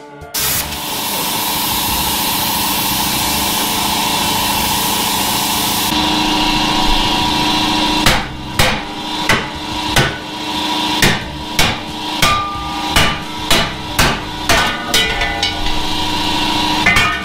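A loud steady hiss for the first several seconds, then about a dozen hammer blows on a steel Mustang II front suspension control arm, roughly two a second with a metallic ring, and one last blow near the end, over a continuing steady hum.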